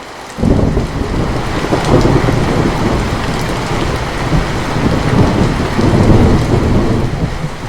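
Steady rain with a long roll of thunder that breaks in suddenly about half a second in, rumbles on with swells and dips, and eases off near the end.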